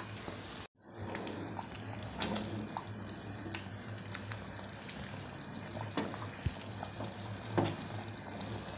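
Thick ragda (pea and potato curry) simmering in a pan on a gas burner, with scattered bubbles popping.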